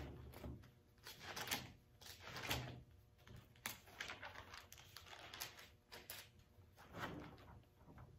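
Pages of a large Bible being leafed through by hand: a run of soft, irregular papery rustles.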